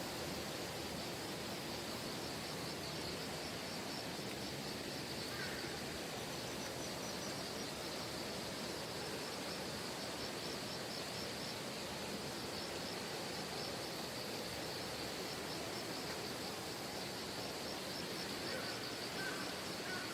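Steady rushing of a valley stream, with insects chirring in rapid, even pulses over it.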